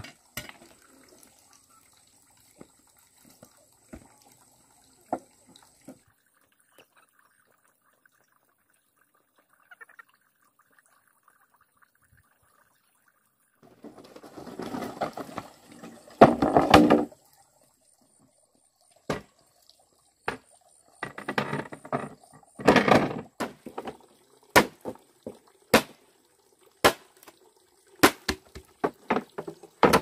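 Two loud bursts of splashing water, then a run of sharp knocks roughly once a second.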